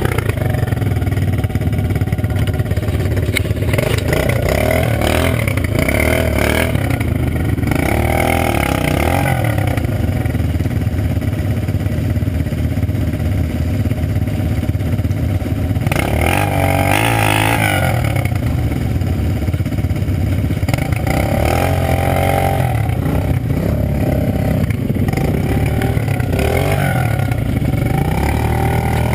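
Quad-bike (ATV) engines: one running steadily close by while another is revved up and down in repeated bursts as it claws up a steep dirt climb, the loudest burst about two-thirds of the way through.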